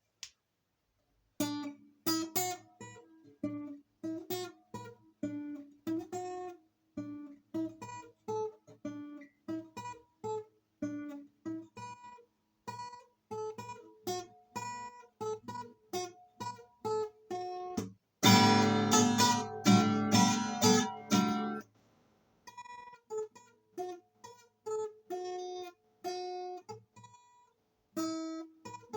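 Guitar playing a song as a pattern of single picked notes, broken by a louder passage of full strummed chords about two-thirds of the way through before the picked notes return.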